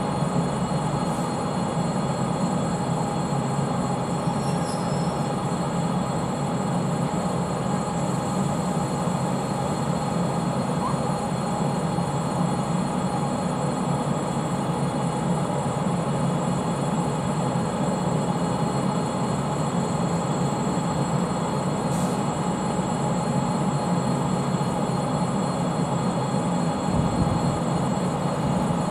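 ChS7 electric locomotive standing with its pantograph raised, its onboard machinery running with a loud, steady hum and a few constant high tones above it.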